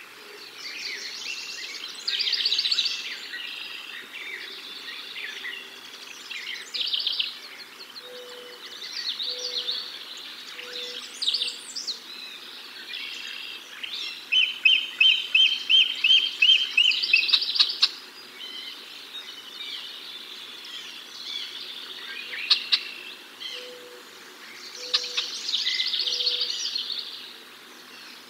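Wild birds singing and calling, with overlapping high songs and chirps. About halfway through comes a loud, fast run of evenly spaced chirps, and twice there are three low, evenly spaced hooting notes.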